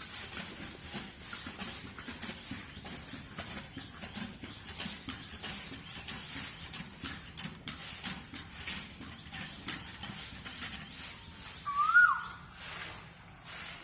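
Outdoor ambience: a pulsing high hiss throughout, with one bird call near the end, a short note that rises and then drops sharply.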